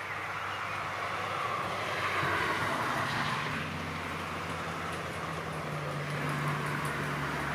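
Road traffic noise: a vehicle passing with a rushing swell about two seconds in, and a low, steady engine hum that comes in about three seconds in.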